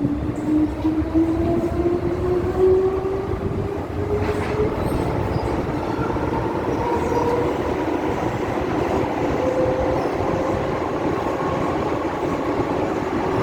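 MTR M-train subway car running in a tunnel, heard from inside: wheels and track rumble steadily under a motor whine that rises slowly in pitch as the train gathers speed, then holds steady near the end.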